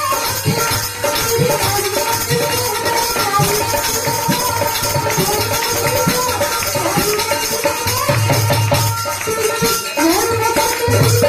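Devotional bhajan music: a wavering melody line over regular hand-drum strokes and rattling, jingling percussion.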